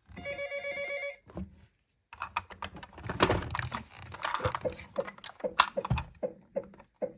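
A steady electronic beep for about a second, then a few seconds of dense, irregular plastic clicking and clattering from a miniature toy car rolling and bumping down a slope.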